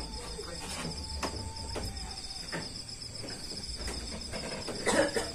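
Night insects, crickets, trilling steadily in a high, rapidly pulsing chorus, with a few faint clicks and a brief louder sound near the end.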